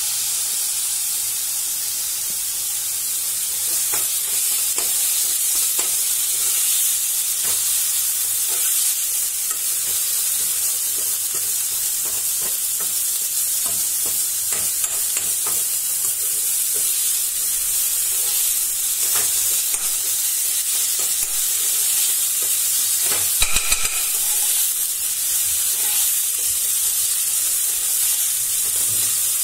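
Finely grated food sizzling in hot oil in a kadai while a spatula stirs it, with repeated scrapes and light knocks of the spatula against the pan. A brief ringing clink about 23 seconds in.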